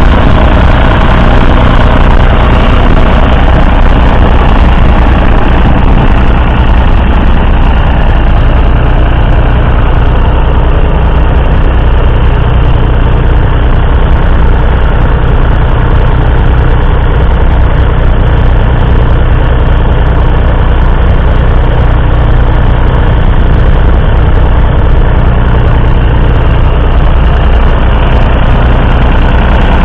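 Massey Ferguson 135's 2.5-litre three-cylinder Perkins diesel engine running steadily under load while pulling a two-furrow reversible plough through the soil. Loud and close, with an even, unchanging engine note.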